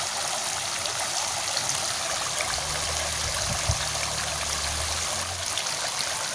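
Steady rushing of flowing water, with a faint low hum for about three seconds in the middle.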